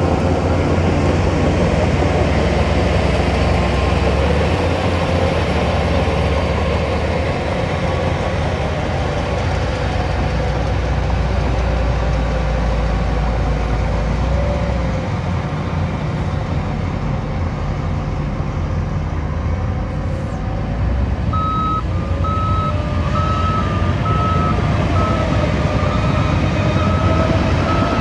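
Heavy diesel construction machinery running steadily under load. About three-quarters of the way in, a reversing alarm starts beeping at an even pace, about one and a half beeps a second.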